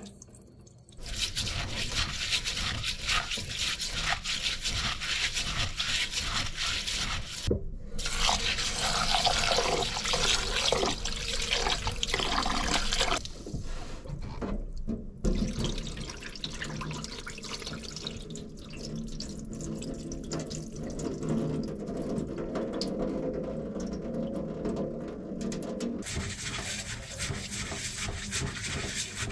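Rice being washed by hand in a glazed ceramic pot at a stainless steel sink: running tap water, water sloshing and being poured off, and the wet grains being rubbed. The water noise is loudest in the first half and drops to a softer swishing about halfway through, rising again near the end.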